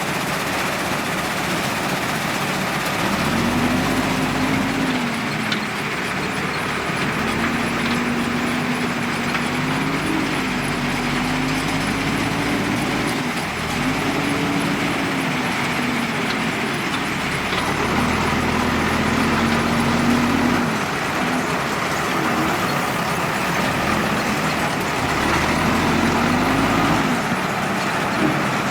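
JCB 3DX backhoe loader's diesel engine running under working load, its pitch rising and falling again and again as the hydraulics are worked.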